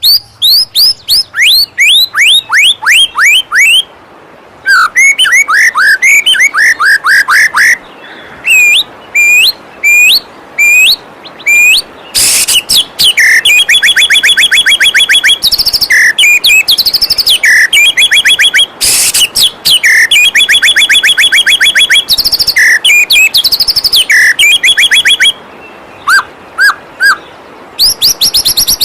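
White-rumped shama (murai batu) singing loud, varied phrases: runs of quick falling whistles and fast repeated trills with short pauses between. The steady rush of a waterfall runs underneath.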